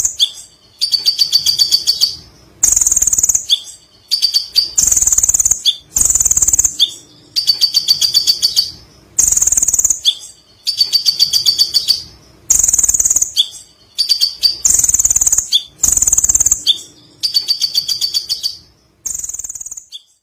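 Kolibri ninja sunbird singing a run of rapid chattering bursts, each a second or so long with short gaps between, in the lovebird-style 'ngekek' chatter it has learned.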